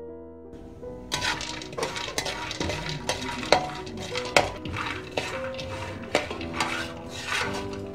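Metal spatula stirring and scraping almonds as they roast in a metal pan, the nuts rattling and clinking, with sharp knocks of the spatula against the pan, loudest about three and a half and four and a half seconds in. Soft piano music plays underneath.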